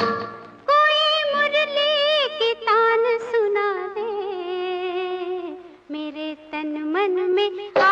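Devotional song playing: a high, female-sounding voice sings long, sliding, ornamented held notes over a steady held drone, with a short break about half a second in.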